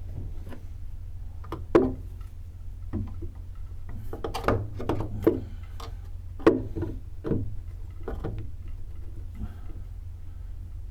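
Irregular knocks and clunks of hands-on demolition work on a plywood boat, spaced unevenly with a couple of sharper hits, over a steady low hum.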